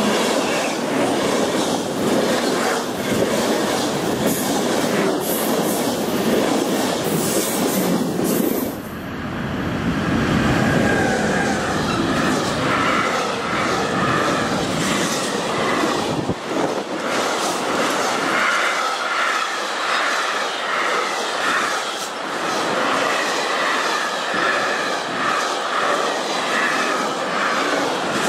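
A Deutsche Bahn Intercity train of passenger coaches rushes past at speed with a dense rushing rumble. About nine seconds in, this gives way to a long intermodal freight train passing, its wagons' wheels clattering rhythmically over the rail joints with a high squeal.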